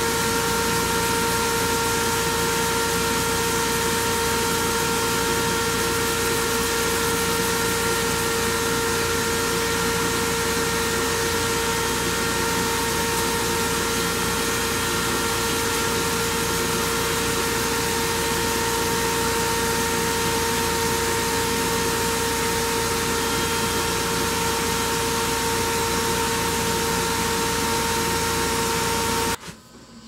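Steady rushing machine noise with a constant whine, from a dust extractor and a wood lathe running while a turned wooden bowl is hand-sanded with 320-grit paper. It cuts off abruptly near the end.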